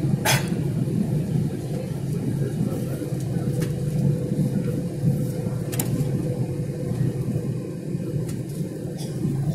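Airliner cabin noise in flight: the steady low rumble of the jet engines and airflow, with a faint steady hum over it. A sharp click sounds just after the start, and a softer one near the middle.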